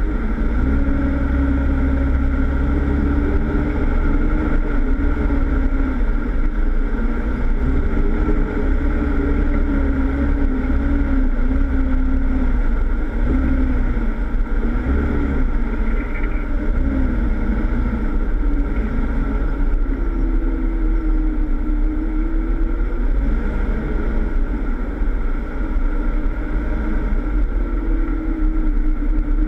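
Jeep Wrangler's engine running at low, uneven revs while driving off-road, its pitch wavering up and down as the throttle is worked, with a steady low rumble underneath.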